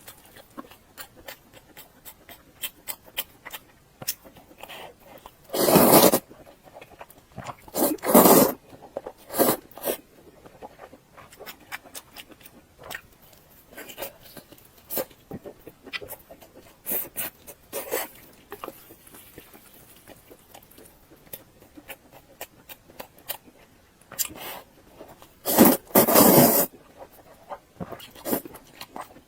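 Close-miked eating of soft, fatty pork belly: steady wet chewing and mouth clicks, with a few louder bursts of mouth noise about six and eight seconds in and again near the end.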